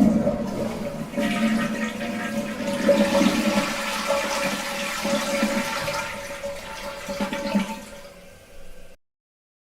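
Toilet cistern flushing: a rush of water with a steady tone running through it, tailing off over the last couple of seconds and stopping suddenly about nine seconds in.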